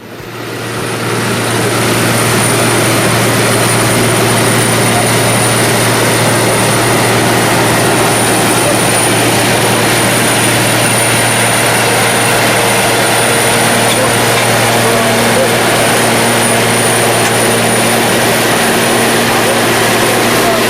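Caterpillar PM102 cold planer milling, its diesel engine and cutting drum running with a steady, loud grinding noise that fades in over the first couple of seconds.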